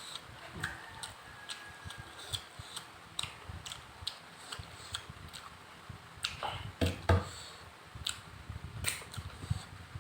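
Close-miked eating sounds: wet chewing with a run of small mouth clicks and smacks as rice and fish are eaten. Two louder, heavier mouth sounds come together about seven seconds in.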